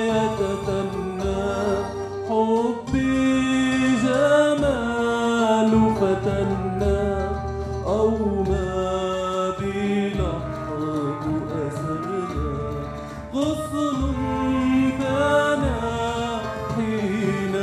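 A solo voice sings a long, sliding, ornamented melody into a microphone. A live instrumental ensemble with strings plays underneath it over a held low note.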